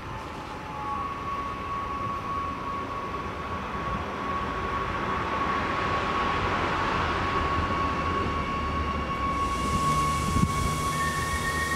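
Adelaide Metro 4000 Series Bombardier electric multiple-unit train coming into the station, its running rumble building steadily. A steady high-pitched whine holds through most of it, and a hiss comes in near the end.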